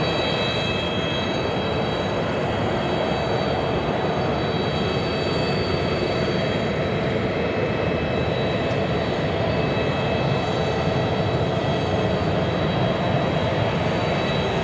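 Airbus A320-232's IAE V2500 turbofan engines at takeoff thrust during the takeoff roll: steady jet noise with a high whine from the fans, growing slightly louder near the end.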